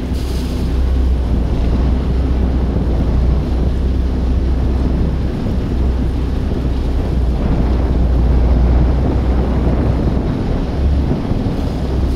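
Steady wind rumble on the microphone aboard a river ferry under way, with water churning and the boat's engine running underneath.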